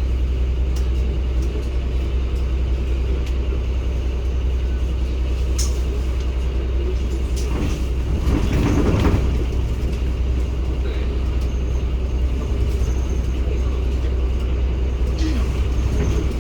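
Cummins ISB 280 hp six-cylinder diesel of a 2016 NEW BS090 city bus running steadily, with its air conditioning off. About eight seconds in there is a brief, louder rush of noise.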